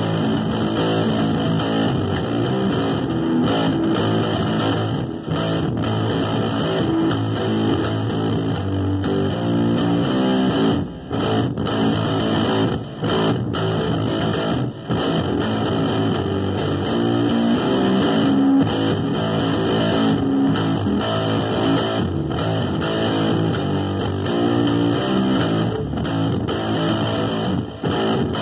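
Electric bass guitar being played in a rock style, steady notes with a few brief breaks around the middle and near the end.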